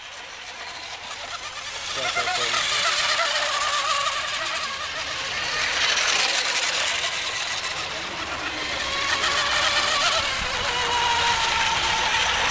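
RC hydroplane racing boats running around the course: a high-pitched whine that rises and falls in pitch as the boats pass and turn, over the hiss of their spray. It grows louder about two seconds in.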